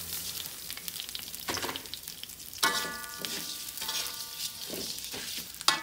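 Wet, soaked rice tipped into hot oil in a metal wok, sizzling steadily as it is stirred and scraped with a metal spatula. About two and a half seconds in there is a brief metallic ring, and near the end a sharp metal knock.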